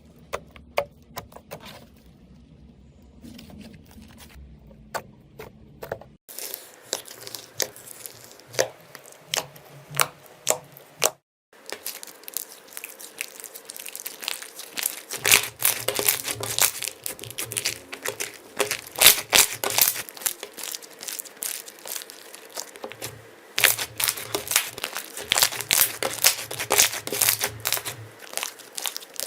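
Slime being squeezed and worked by hand, giving runs of sharp crackling clicks and pops that break off suddenly twice.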